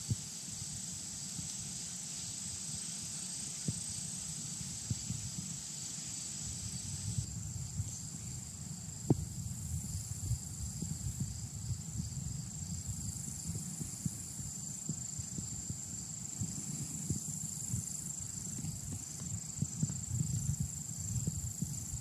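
A steady, high-pitched insect buzz, which the walker traces to a group of loud bees that are not honeybees, over a low, uneven rumble. A single sharp click sounds about nine seconds in.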